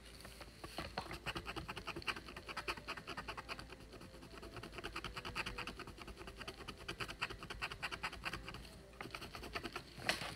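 A wooden stylus scratching the black coating off a scratch-art board in rapid, short strokes, making a fast, steady scratching, with one sharper click near the end.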